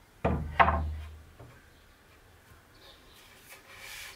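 Pine boards knocking against each other twice in quick succession as they are set down leaning against a wall, then a light scrape of wood shifting near the end.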